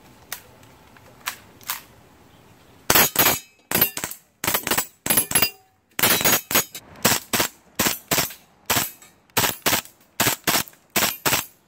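KWA Kriss Vector gas blowback airsoft gun firing in two-round burst: sharp cracks in close pairs, about every half second, starting about three seconds in after a few faint clicks.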